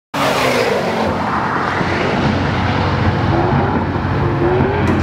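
A car engine running hard at speed. Its pitch glides down and then up again, and there is a heavy rush of noise. The sound cuts in suddenly.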